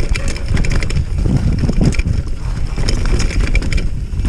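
Mountain bike ridden fast down a dirt singletrack: tyres rumbling over the ground and the bike rattling and clicking over bumps, with heavy wind on the microphone.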